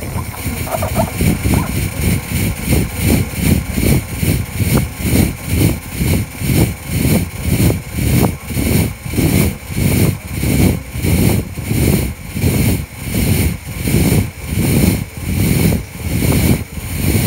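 Electric fog machine running and pumping out fog: a steady buzzing hiss that surges rhythmically about twice a second.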